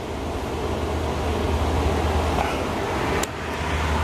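Hand pop-rivet gun being squeezed on a rivet through a two-part pulley, with one sharp click about three seconds in, over a steady low rumble.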